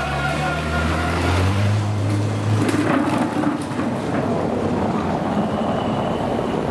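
A motor's steady low hum for the first couple of seconds, then a rough, rumbling noise as a time-trial bicycle with a disc rear wheel rolls over cobblestones.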